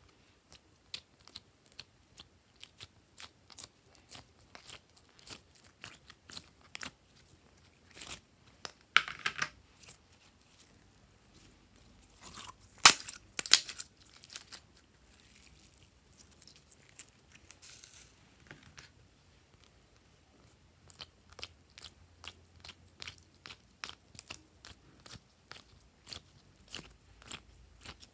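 Sticky slime being squeezed and pulled out of a plastic ice cube tray: a stream of small wet clicks and pops, with louder crackling bursts about nine and thirteen seconds in.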